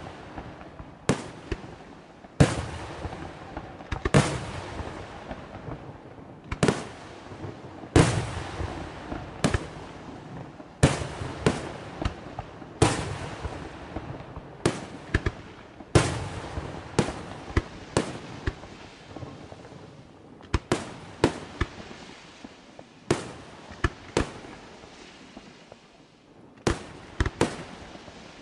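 Aerial firework shells bursting in a steady sequence: sharp bangs roughly every one to two seconds, each trailing off in an echo, with some quicker double and triple bangs near the end.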